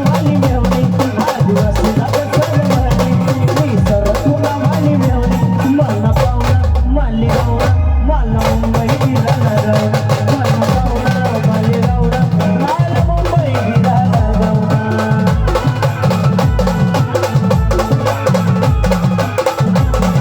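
Maharashtrian brass band playing a song live, with drums keeping a fast, steady beat under the melody. The high percussion drops out for about a second, then returns.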